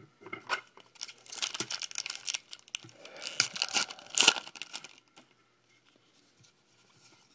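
Foil trading-card pack wrapper crinkling and being torn open by hand, a dense crackle with the loudest tearing around four seconds in, stopping about five seconds in.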